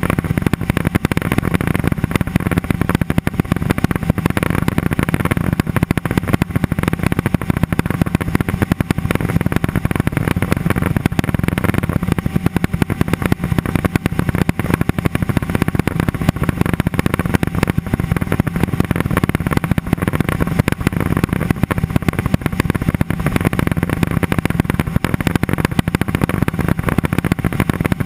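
Cessna 206 Soloy's turbine engine and propeller running steadily in flight: a loud, even drone that holds without change.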